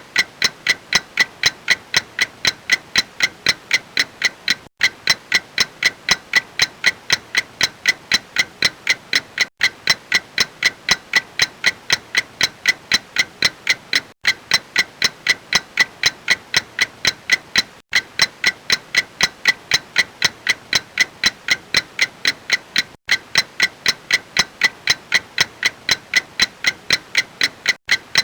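Clock ticking in a fast, even rhythm, about three sharp ticks a second.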